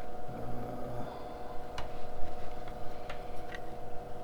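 A few light, sharp clicks over a steady electrical hum.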